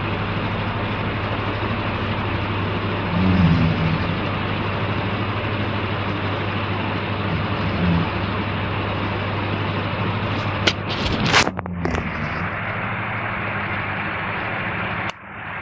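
A man snoring, with low rasping swells every few seconds over a steady hiss. Sharp clicks and rustling come about two thirds of the way in.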